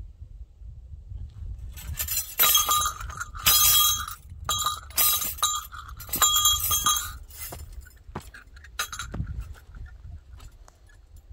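An animal calling: four loud, pitched, harsh cries in quick succession, starting about two seconds in and ending around seven seconds, then a fainter one near nine seconds, over footsteps on a dirt trail.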